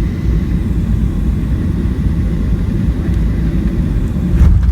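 Steady low rumble of a Boeing 737-700's CFM56-7B engines and slipstream, heard inside the cabin on final approach, with a brief louder thump near the end.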